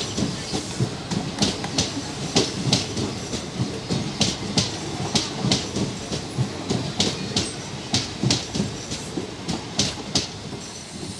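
Indian Railways passenger coaches rolling slowly past, their wheels clacking over rail joints in a steady rhythm of about two to three clacks a second over a low rumble.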